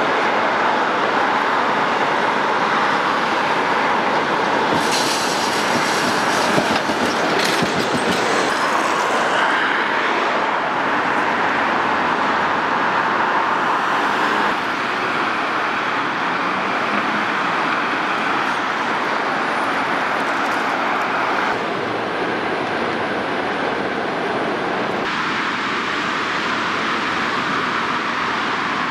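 Busy city street with road traffic and Tatra T3 trams running on the street track, a steady mix of traffic and rail noise. About five to nine seconds in there is a stretch of clatter and high-pitched wheel-on-rail noise. The background changes abruptly a few times.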